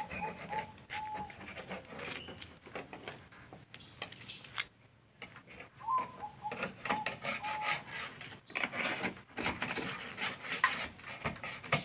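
Paint and body filler being scraped by hand off a Mitsubishi Colt T120's body panel: irregular rasping strokes that come in quicker, denser runs in the second half.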